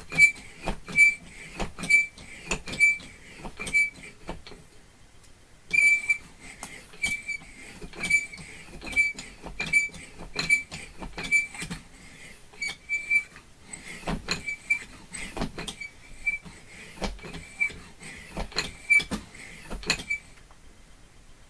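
Bicycle pump worked in quick, even strokes, about two a second, each stroke giving a short squeak and a click as the inner tube is inflated. The pumping breaks off briefly about four seconds in and stops shortly before the end.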